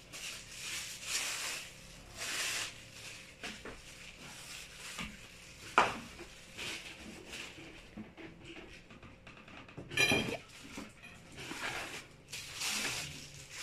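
Steel wire shelving parts being handled, with rustling of plastic wrap, a sharp metal clack about six seconds in, and a ringing metal clang about ten seconds in.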